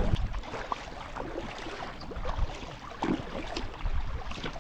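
Water splashing and lapping around a kayak as it is paddled through small wind-driven waves, with short irregular splashes from the paddle blades.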